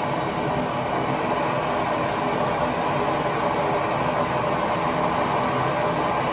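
Handheld gas torch burning with a steady hiss while heating a thick copper water line for soldering.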